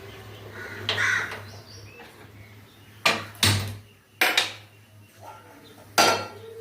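Metal kitchen pots and utensils clanking as they are handled: two sharp knocks about three seconds in, two more a second later, and one near the end, each with a short ring.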